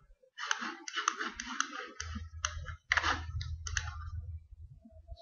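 Rapid clicking and tapping of a computer keyboard and mouse, a quick irregular run of sharp clicks over a low rumble from about two seconds in.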